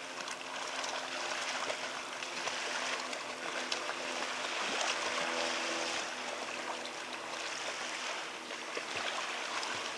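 Shallow sea water splashing as a small child kicks and slaps at it at the water's edge, over the steady wash of small waves.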